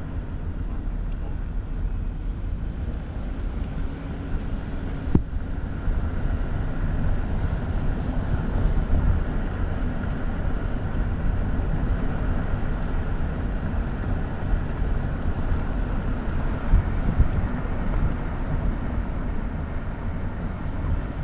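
Car driving slowly, heard from inside the cabin: a steady low engine and tyre rumble, with a single sharp click about five seconds in.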